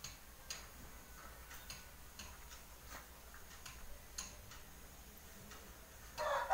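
Faint, scattered clicks and light taps of fingers and a finger ring on a steel plate as a heap of boiled rice is spread and pressed by hand. A rooster starts crowing just before the end.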